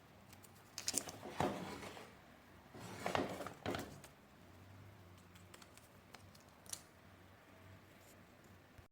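Plastic parts being handled during vacuum-cleaner assembly: two short bursts of clicks and rustling, about a second apart, and then a lone click later on.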